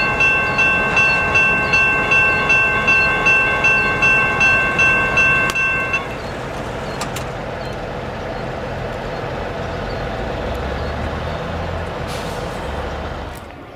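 Railroad grade-crossing bell ringing about twice a second over a slow-moving diesel freight train. The bell stops about six seconds in, leaving the steady rumble of the locomotives and cars.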